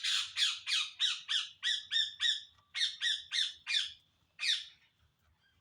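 A bird squawking: a rapid series of short harsh calls, each dropping in pitch, about four a second, with a brief break partway and one last call near the end.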